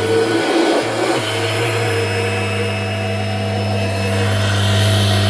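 Kirby Generation 5 upright vacuum's motor running with a steady hum and whoosh of air, running well. The sound turns briefly rougher and louder about half a second to a second in, then settles steady.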